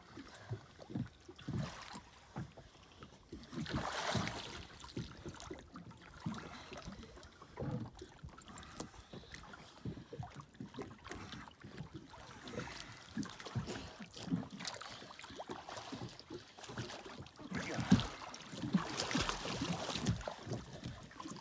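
Lake water lapping and slapping against a floating wooden dock in irregular low knocks, with wind on the microphone gusting about four seconds in and again near the end.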